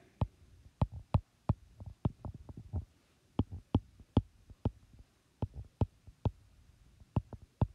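Stylus tapping on an iPad's glass screen while handwriting, about two dozen short, irregular taps.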